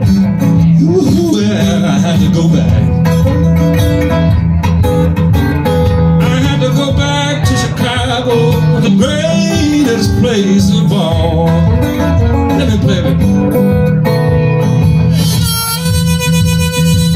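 Live acoustic blues: an acoustic guitar is strummed steadily while a harmonica in a neck rack plays bending lines over it. The harmonica comes to the fore near the end with long held notes.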